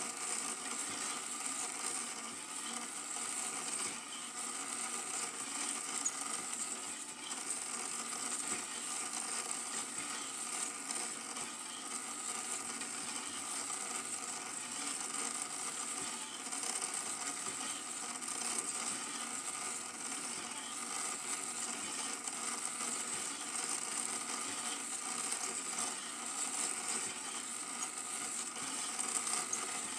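A Super 8 film projector running steadily, its motor and film transport making a constant mechanical whir with hiss.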